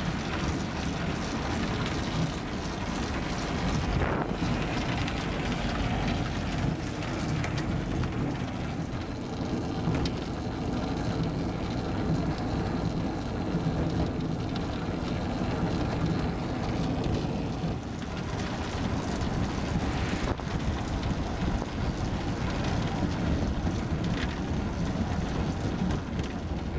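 Evo K velomobile rolling along at speed: a steady rumble of tyres and road noise carried through the shell, with wind buffeting the microphone and a couple of light knocks from bumps.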